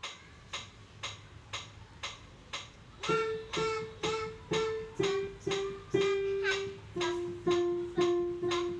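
Metronome clicking about twice a second, then from about three seconds in single notes on a digital piano, struck one per click in a slow beginner's melody.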